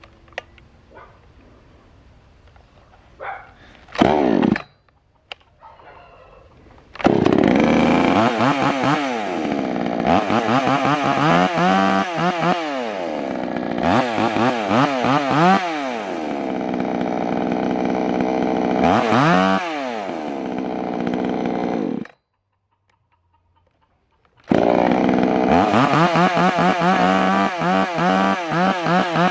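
VI-POWER ECO 58cc two-stroke chainsaw engine: after a few short bursts in the first seconds, it runs from about seven seconds in and is revved again and again, its pitch climbing and falling. The sound stops abruptly about 22 seconds in. About two seconds later it is back, running and revving the same way.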